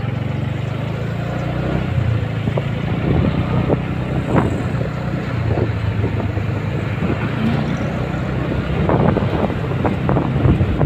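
Motorbike engine running steadily at low speed, with wind noise on the microphone. Occasional short knocks come as it rolls over broken, cracked tarmac, more often near the end.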